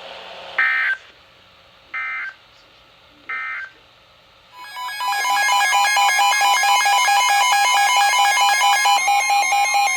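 Emergency Alert System weather-radio tones: three short, shrill data bursts about a second and a half apart, the end-of-message signal closing the previous warning, then about four and a half seconds in a loud, continuous electronic alarm of several steady pitches begins, the alert tone announcing the next warning.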